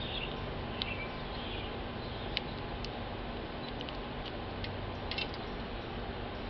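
Scattered sharp clicks and taps at a plastic tube seed feeder, where a male house finch pecks seed at the feeding port, over a steady background hiss. Brief bird chirps sound in the first second and a half.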